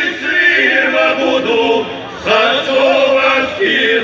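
Male vocal group singing a Serbian folk song in chorus over a stage PA. There is a short break between phrases about two seconds in.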